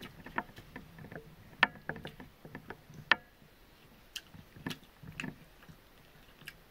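Eating by hand from a banana leaf: scattered sharp clicks and soft taps of fingers working biryani rice on the leaf, with mouth sounds of eating. The loudest clicks come about one and a half and three seconds in.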